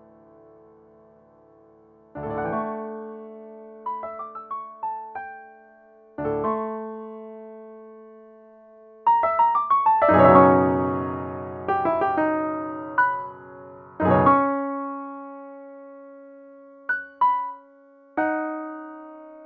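Solo piano playing a slow, impressionistic piece: chords struck and left to ring and die away, a quick cluster of notes with a loud deep chord about halfway through, another loud chord soon after, then a few sparse high notes near the end.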